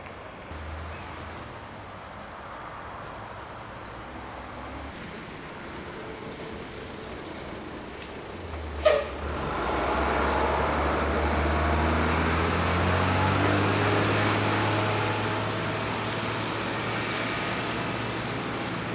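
Heavy diesel engine running with a low rumble. A sharp clack comes about nine seconds in, and the engine then grows louder and runs on steadily.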